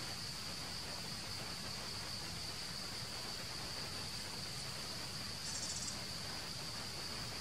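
Steady high-pitched drone of a chorus of insects, with a brief, slightly louder and higher buzz a little past halfway.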